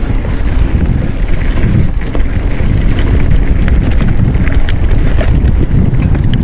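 Mountain bike ridden over a dirt trail: wind buffeting the mounted camera's microphone over the tyres' low rumble, with scattered clicks and rattles from the bike.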